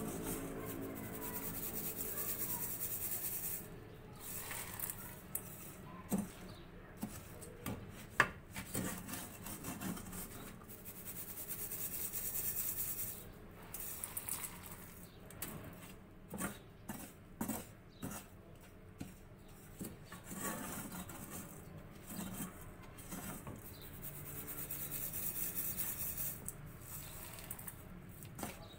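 Perforated steel skimmer scraping and sifting through the hot roasting salt in a kadhai, a gritty hiss of salt running through the mesh, with sharp clicks of peanuts and metal against the pan and a steel bowl now and then. This is the roasted peanuts being strained out of the salt they were roasted in.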